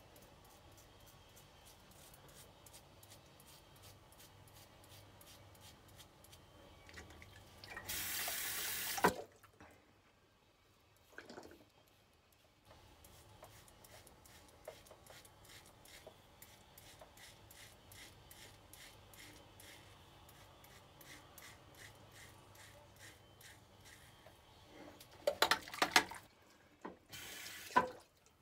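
A OneBlade Genesis single-edge safety razor scraping through lathered stubble in rapid, even short strokes. A tap runs into the sink about eight seconds in and again twice near the end, and these spells of water are the loudest sounds.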